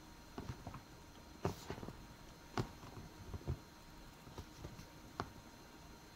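Paper pages being leafed through and handled: faint, scattered rustles and taps, about one every second.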